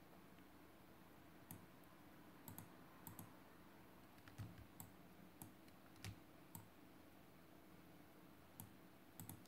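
Faint, irregular computer mouse clicks and key presses, about a dozen spread through, over a low steady room hum.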